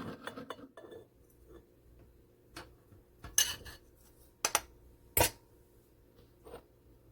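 Stainless steel grinder bowl and its lid being handled: a scatter of sharp clinks and knocks, the loudest about three and a half and five seconds in.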